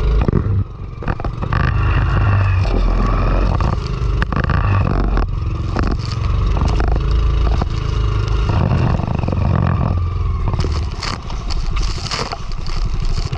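A motor vehicle's engine running steadily while under way, with scattered rattling and scraping knocks throughout.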